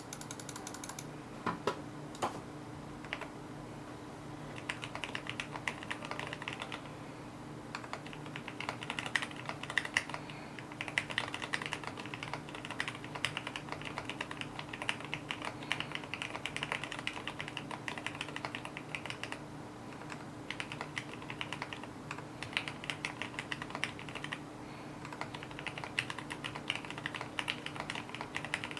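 Typing on a custom 65% mechanical keyboard with lubed, retooled Cherry MX Black linear switches, a stainless steel plate and a fully foamed plastic case: a few single key presses, then fast runs of keystrokes broken by short pauses, over a faint steady hum.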